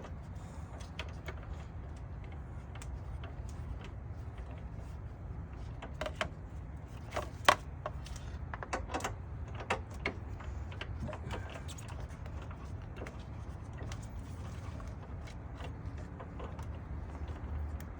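Scattered clicks, clinks and light knocks of hand tools and plastic parts being worked in a car's engine bay, with one sharp knock about seven and a half seconds in, over a steady low rumble.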